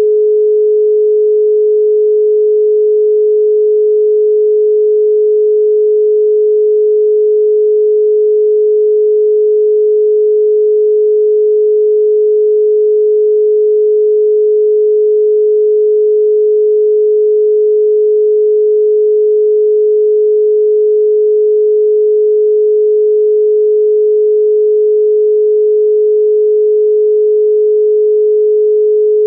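Australian telephone dial tone: a single steady 425 Hz tone, unbroken, signalling that the exchange is ready for the caller to dial.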